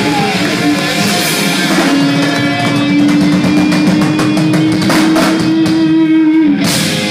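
Live rock band playing loud: electric guitar and drum kit, with one long held note through the middle and fast drum strokes under it.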